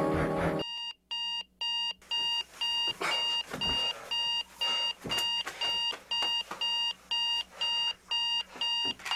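Digital alarm clock beeping, a high-pitched repeating beep of about two a second, with a few knocks among the beeps.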